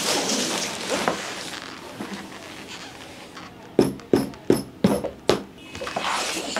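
Crinkly polythene bag rustling as a backpack is slid out of it, then a quick run of about five sharp taps and knocks as the bag is handled and set down.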